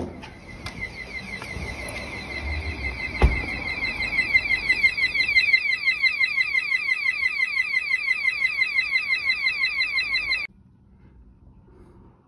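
Newly fitted Orisec external alarm siren sounding in a bell test: a rapid warble of rising sweeps that grows louder over the first few seconds, then cuts off suddenly near the end. A single sharp knock about three seconds in.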